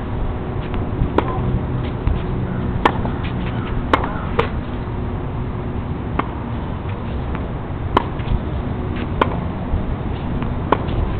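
Tennis balls struck by rackets and bouncing on the court in a rally: sharp, separate pops about every one to two seconds, over steady low background noise.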